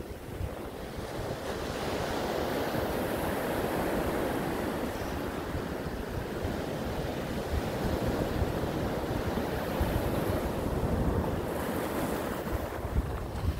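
Ocean surf: waves breaking and washing in as a continuous rush, swelling louder about two seconds in, with wind buffeting the microphone.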